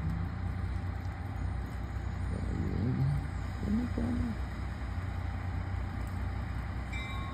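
Diesel locomotive engine idling with a steady low rumble. A few brief low tones rise over it a few seconds in.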